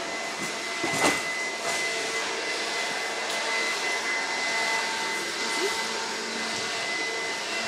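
A small motor or fan running steadily, a constant whir with a high hum over it, and a single knock about a second in.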